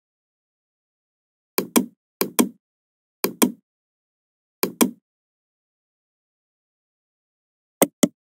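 Computer mouse button clicks: five quick press-and-release pairs of sharp clicks, irregularly spaced, with dead silence between them.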